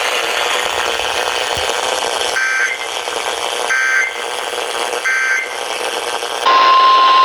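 Weather radio receiver hissing with static, then three short screeching data bursts of an EAS/SAME alert header. About 6.5 seconds in, the steady 1050 Hz NOAA Weather Radio warning alarm tone begins, signalling that a warning is about to be read.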